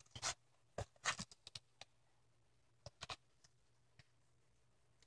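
Hands handling a handmade paper-and-foam chocolate envelope: a few faint, short rustles and taps of card and paper, clustered in the first second and a half and again about three seconds in.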